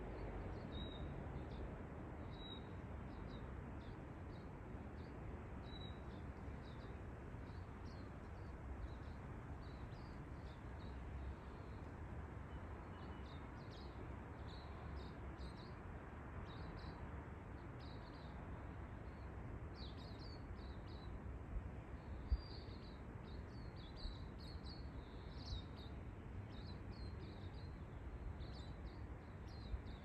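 Small birds chirping: short high notes repeated throughout, busier in the second half, over a steady low background rumble. A few brief sharp knocks come about two-thirds of the way in.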